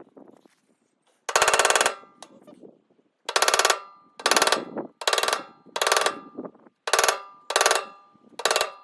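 Eight sharp strikes on metal, each ringing briefly, coming closer together toward the end: most likely a rifle cartridge case being hammered through leather as a makeshift punch to cut slits.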